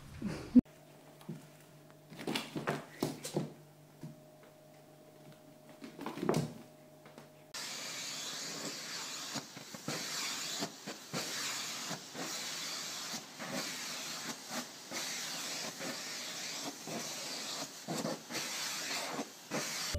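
A vacuum cleaner's hissing airflow starts about a third of the way in and runs on, wavering in level as the nozzle is drawn over a cat's fur. Before it there are a few soft knocks over a faint hum.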